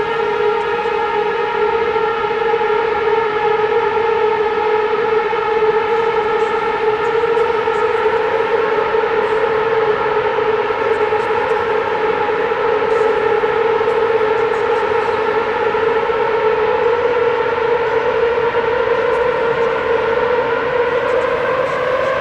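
A loud, sustained synthesizer drone: one held siren-like tone with a stack of overtones, steady for a long stretch and slowly rising in pitch near the end.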